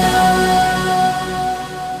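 Background music: sustained synthesizer chords fading out.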